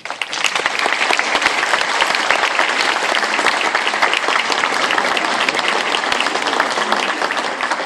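An audience applauding: many people clapping at once. The clapping starts suddenly, holds steady and begins to die away near the end.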